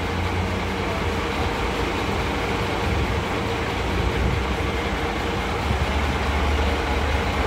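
Parked fire truck's engine idling: a steady low rumble with a faint constant hum, over general street noise.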